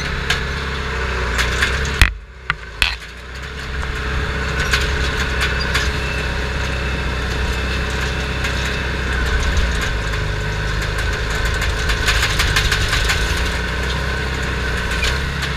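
Bulldozer's diesel engine running steadily, heard from inside the caged operator's cab, with scattered rattles and clicks. A sharp knock comes about two seconds in, and the sound drops briefly before settling back to the steady run.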